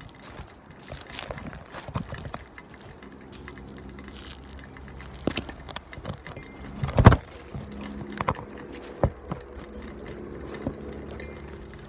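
Camera handling noise: gloved hands fumbling with the camera right at its microphone, making irregular knocks and rubs, the loudest about seven seconds in.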